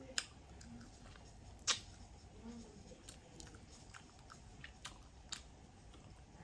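A person chewing a mouthful of barbecue pork rib meat and gristle, with short sharp mouth clicks every second or so, the loudest about a second and a half in.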